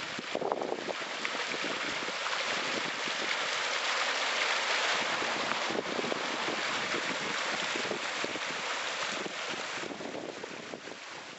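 Water spilling in a sheet over the rim of a stone fountain basin and splashing into the pool below: a steady rushing splash, loudest around the middle and easing off near the end.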